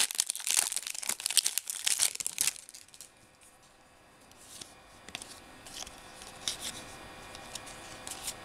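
The wrapper of a Topps Holiday baseball card pack being torn open and crinkled for about two and a half seconds. After that come softer sounds of the cards being handled, with a few light clicks.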